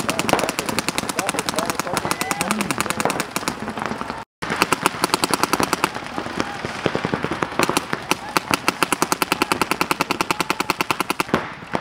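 Rapid, continuous streams of paintball marker fire, many shots a second from several markers overlapping. The fire cuts out briefly about four seconds in.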